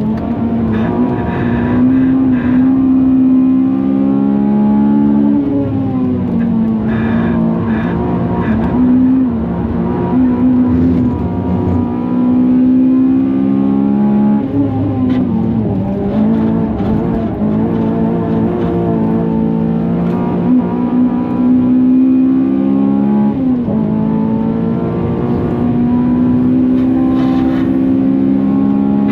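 Honda Civic FN2 Type R's K20 four-cylinder engine at full throttle, held flat at the top of the rev range for seconds at a time, as if bouncing on the rev limiter. The revs dip sharply and climb back several times, at gear changes or lifts.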